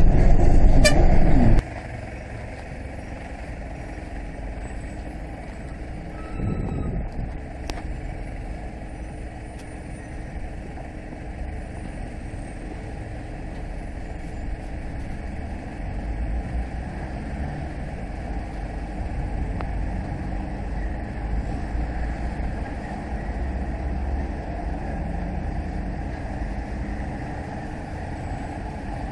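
Heavy diesel truck passing close and loud, cut off abruptly after about a second and a half. Then a heavy truck hauling a low-loader trailer runs steadily at low speed, its engine slowly growing louder as it approaches.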